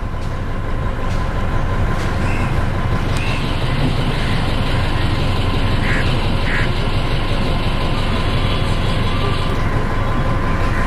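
Cruise boat's engine running steadily underway: a constant low drone with a thin steady whine above it.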